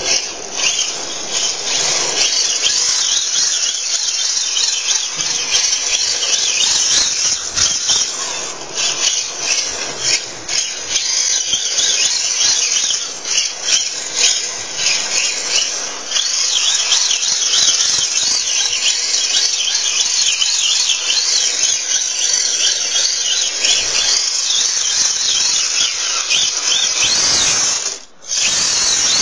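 Tamiya TA01 radio-controlled drift car running on asphalt: its electric motor and drivetrain whine while the hard drift tyres scrub and squeal as it slides. The sound drops away briefly near the end.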